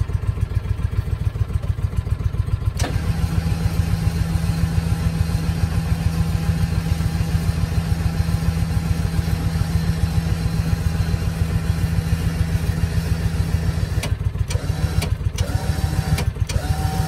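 Engine running at a steady speed, an even low pulsing throughout. About three seconds in, a steady hum joins it and drops away near the end.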